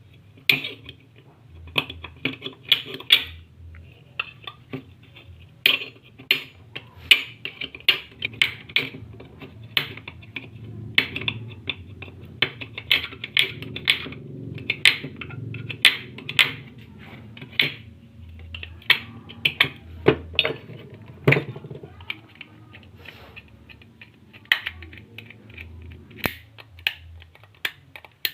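Irregular metallic clicks, taps and clinks of hand tools and small metal parts being handled while a 12-volt snail horn is worked on, several knocks a second at the busiest, over a low hum.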